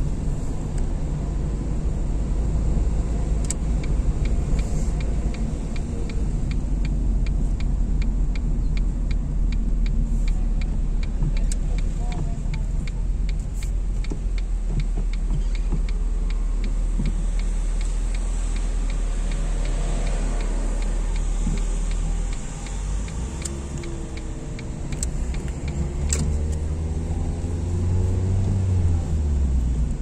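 Car driving, with steady engine and tyre-on-road rumble heard from inside the cabin. A fast regular ticking runs through the first half. Near the end the engine note rises after a brief easing off, as the car speeds up again.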